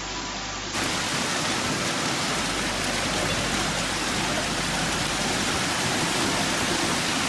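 Torrential rain pouring down in a dense, steady hiss that cuts in abruptly about a second in, after a quieter stretch.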